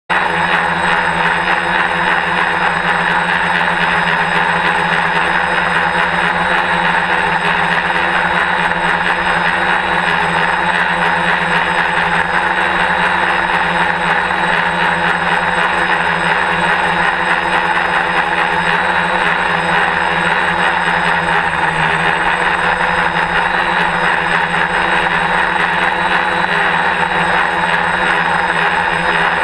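DJI F450 quadcopter's four electric motors and propellers running in flight: a loud, steady whine of several held tones, heard through the GoPro mounted on the frame. The pitch shifts slightly about two-thirds of the way through.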